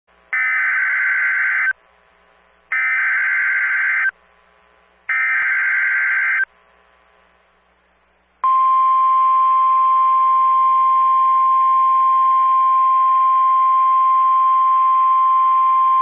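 NOAA Weather Radio Emergency Alert System activation: three short bursts of SAME digital header data, then, about eight seconds in, the single steady 1050 Hz warning alarm tone, which runs to the end. The alert opens a flash flood warning broadcast.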